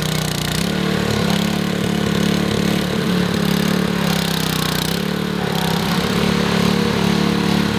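An engine running steadily, its pitch dipping and recovering briefly about half a second in and again about five seconds in.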